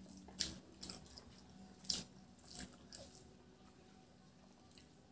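Close-up eating sounds of rice and kochu saag eaten by hand: four short wet smacks in the first three seconds, then fainter, over a faint low hum.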